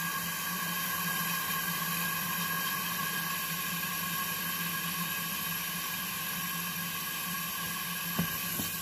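Electric motor running steadily, pushing air through the refrigerator's tubing to flush out the cleaning solvent: an even hum with steady higher whining tones.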